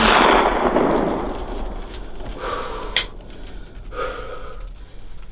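Remington youth shotgun fired at a deer: the blast right at the start, its report rolling away and fading over about two seconds. A single sharp click follows about three seconds in.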